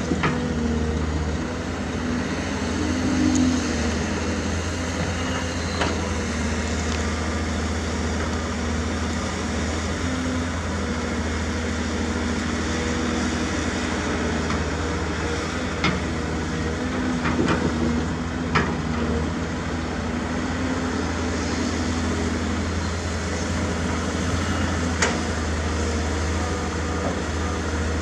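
Diesel engine of heavy earthmoving equipment running steadily, with a few short sharp knocks scattered through.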